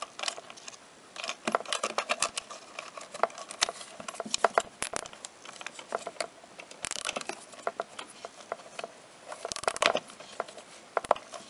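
Nylon cable ties being drawn tight with long-nose pliers around a coil spring inside a plastic mirror housing, compressing the spring: a run of small irregular clicks, ticks and plastic rustles.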